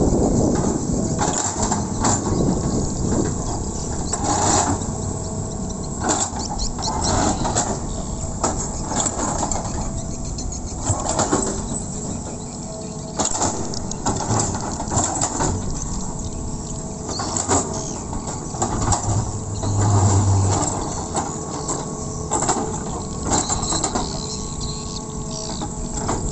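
Hydraulic crawler excavator working: its diesel engine runs steadily under load while the bucket scrapes and knocks against loose soil as it levels mounds of earth, with repeated clanks spread throughout. The low engine hum swells briefly about twenty seconds in.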